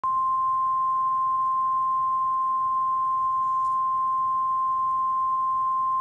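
NOAA Weather Radio's 1050 Hz warning alarm tone: one loud, steady, unbroken pure tone. It signals that a warning broadcast, here a severe thunderstorm warning, is about to follow.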